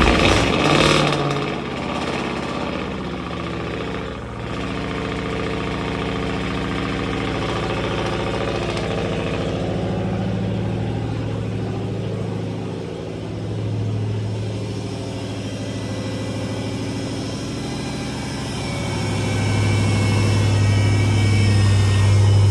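Supercharged Hellcat 6.2-litre HEMI V8, freshly swapped into a Charger Scat Pack, fires up with a loud flare. It settles into a steady idle, which gets louder again near the end.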